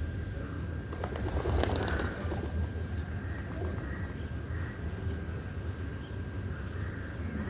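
Birds calling, with a high, regular chirping repeating about twice a second over a steady low hum. A brief rustling clatter comes about a second in.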